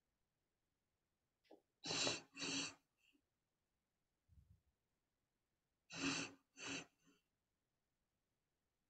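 Faint, rhythmic breathing through the mouth in a two-inhales, one-exhale breathwork pattern. There are two quick, sharp breaths in a row, twice, about four seconds apart, with fainter breath sounds between.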